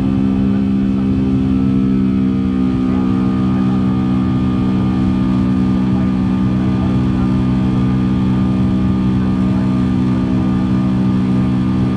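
Cabin noise of a Boeing 757-200 climbing out after takeoff: the turbofan engines run steadily at climb power, a loud, even drone with a low multi-tone hum. A faint higher whine joins in about two and a half seconds in.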